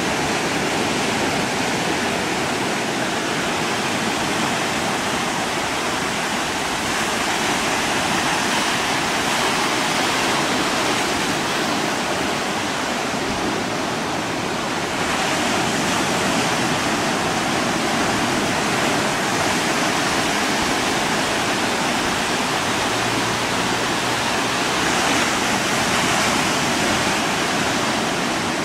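Steady rushing noise of choppy water and waves, even throughout, with a faint steady tone underneath.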